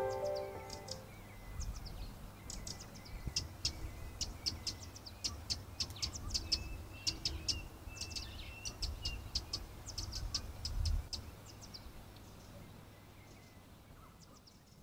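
Eurasian wren giving rapid, dry ticking calls: many short, high clicks in irregular runs, stopping about eleven seconds in. A low rumble runs underneath.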